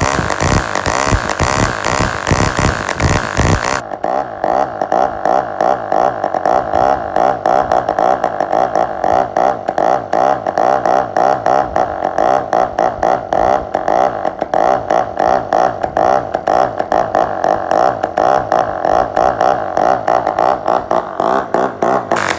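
Taifun Blizzard 22cc two-stroke model diesel engine running steadily at speed, with a constant buzzing drone. About four seconds in, a harsher hissy edge drops out of the sound, and it returns right at the end.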